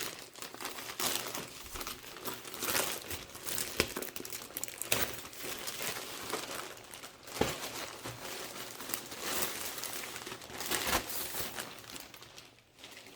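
Plastic packaging bags crinkling and rustling in irregular bursts as they are handled and pulled at.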